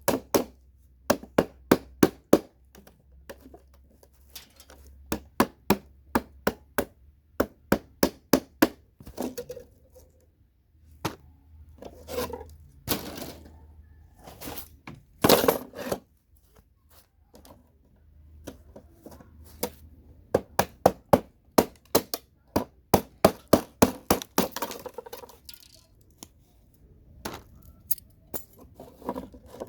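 Hammer blows knocking CPU sockets off scrap motherboards: quick runs of sharp strikes, a few a second, broken by short pauses, with some cracking and rattling of board and plastic between them.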